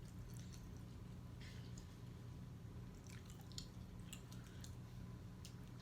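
A person chewing food close to the microphone: faint chewing with scattered small clicks.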